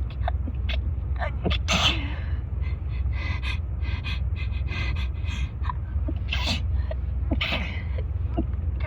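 A person with a head cold sneezing over and over in rapid fire: a string of short sneezes and sharp breaths, with stronger sneezes about two seconds in and twice near the end.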